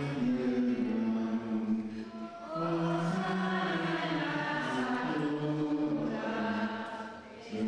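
A group of voices, a church choir, singing a slow hymn in long held notes. The singing pauses briefly for breath about two and a half seconds in and again near the end.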